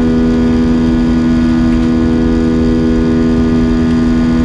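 Steady in-cabin drone of an Airbus A320-232 in flight, from its IAE V2500 turbofan engines and airflow: a strong steady hum with overtones over a low rumble.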